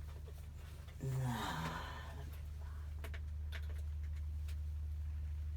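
A man sighs or grunts once, about a second in, over a steady low hum, with a few faint clicks afterwards.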